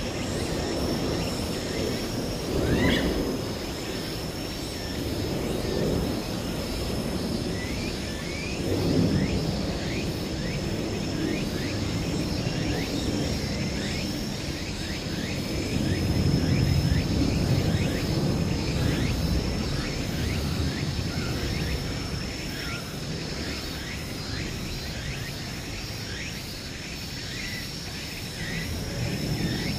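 Outdoor ambience: a steady high-pitched whine throughout, many short high chirps, and a low rumbling noise that swells and fades a few times.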